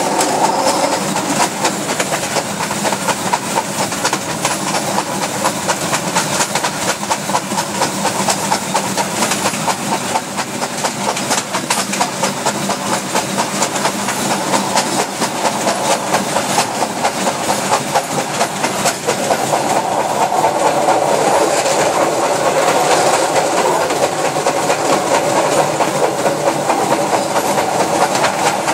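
Ty2 steam locomotive, a 2-10-0 of the German class 52 type, running at speed and heard from on the locomotive: a steady rhythmic clatter and rumble of wheels and running gear on the rails. It grows somewhat louder about two-thirds of the way in.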